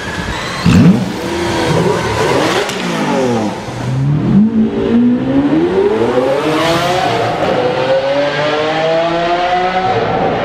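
Hyundai Santro hatchback's engine revving hard, with a loud burst about a second in; its pitch dips and wavers, then climbs steadily from about four seconds on as the car accelerates away.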